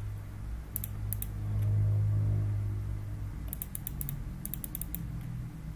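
Computer keyboard and mouse clicks in small scattered clusters, over a steady low hum that swells for about a second and a half near two seconds in.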